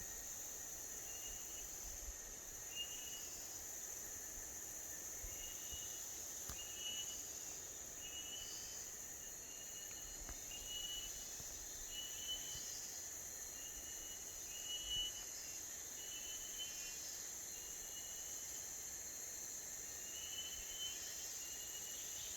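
A bird giving short, repeated call notes, about one a second with a short pause near the end, over a steady high-pitched insect drone.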